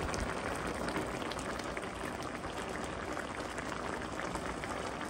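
Skate braise in a chili-soy sauce simmering in a frying pan, the sauce bubbling and crackling steadily.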